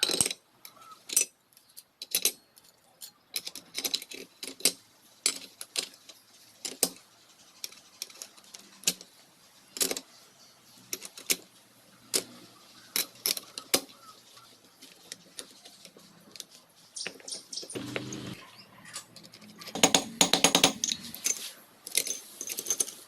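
Metal tools and engine parts being handled: scattered sharp metallic clinks and taps, with a quick run of rapid clicks about twenty seconds in.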